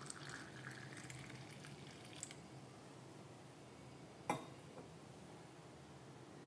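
Herbal coffee being poured through a strainer into a cup: faint trickling and dripping for the first two seconds or so, then a single sharp knock a little past four seconds in.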